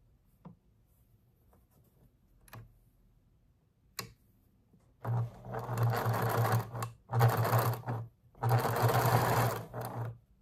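Electric sewing machine stitching in three short runs, stopping briefly between them, after a few faint clicks in the first seconds.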